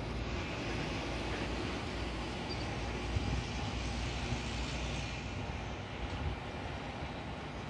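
Jet airliner engines running at taxi power: a steady low rumble with a hiss that swells for the first few seconds and then eases.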